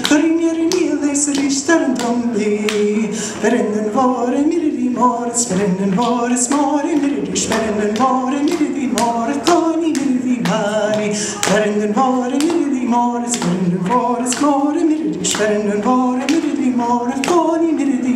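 A woman singing puirt à beul (Scottish Gaelic mouth music) unaccompanied: a quick, rhythmic dance-tune melody carried on fast, evenly spaced syllables.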